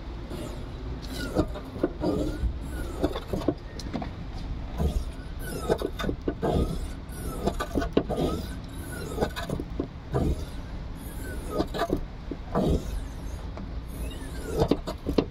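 Defective hood gas strut on a car, metal rubbing inside it, scraping as the strut is pushed in and out about ten times. Each stroke carries a short squeal that rises and falls in pitch.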